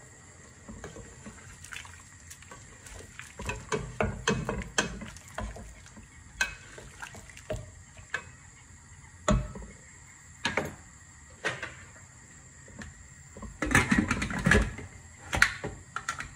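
A wooden spoon knocking and scraping in a stainless steel pressure cooker pot, in scattered irregular knocks. Near the end comes a louder metallic clatter and a sharp clank as the pressure cooker lid is set on and locked.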